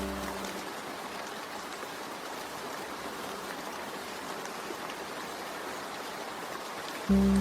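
Steady rain falling on a window glass, an even hiss with scattered drop sounds. Sustained low music tones fade out in the first half second, and a low tone comes back in just before the end.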